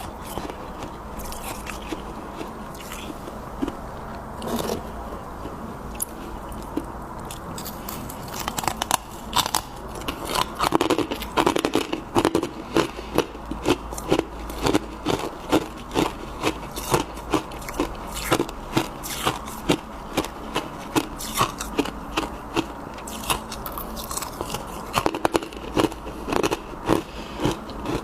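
Freezer frost being bitten and chewed close to the microphone. Scattered crackles and scrapes come first, then loud, rhythmic crunching at about two chews a second from about a third of the way in.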